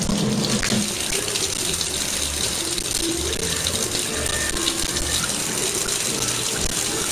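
Kitchen faucet running a steady stream of water into a sink.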